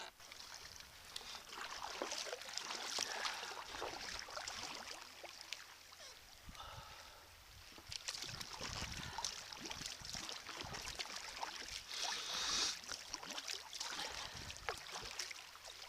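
Sea kayak paddle dipping and splashing in choppy water, with irregular surges of water noise.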